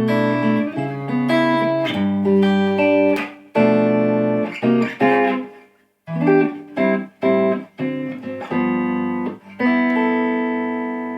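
Fender Stratocaster electric guitar played through an amp, a run of chords and single notes. The playing stops briefly about six seconds in, then comes back with short stabbed chords and ends on a long ringing chord.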